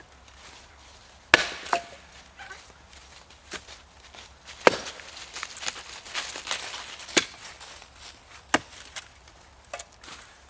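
An axe splitting a seasoned red oak log into firewood: about ten sharp chopping strikes at uneven intervals, the first coming about a second in, with the wood splitting apart.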